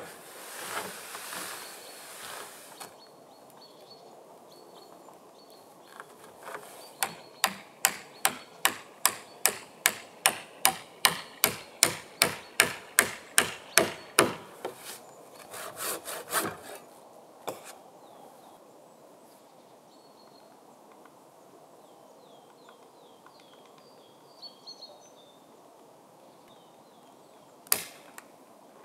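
A hammer striking wood in a steady run of about twenty sharp blows, two or three a second, followed by a few more scattered knocks and a single knock near the end.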